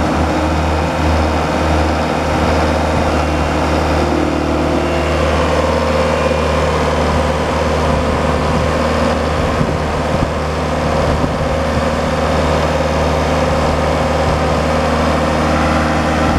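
Bomag 815-2 asphalt paver's diesel engine running steadily.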